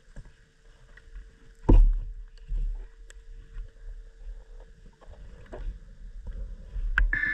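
Underwater handling noise from a diver's gear: scattered clicks and knocks over a low rumble, with a loud thump about two seconds in and another shortly after. A faint steady hum runs for a few seconds from the first thump.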